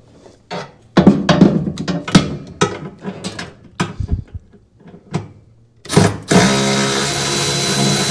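Cordless electric ratchet being fitted to a bolt with a series of sharp metal clanks and knocks, then, about six seconds in, a short burst followed by its motor running steadily with a thin high whine as it drives the bolt.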